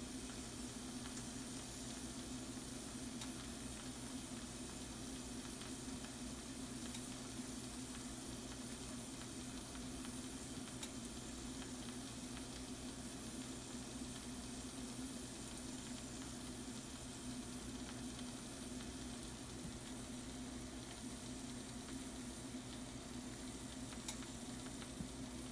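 Shrimp and mushrooms sizzling in a skillet: a steady frying hiss with a few faint pops, over a low steady hum.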